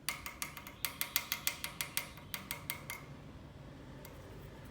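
A quick run of light, slightly ringing taps on a hard object, about six a second, stopping about three seconds in.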